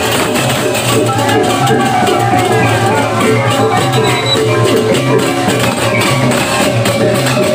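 Balinese processional gamelan (baleganjur) playing continuously: hand cymbals clashing rapidly over drums, with some ringing metal tones.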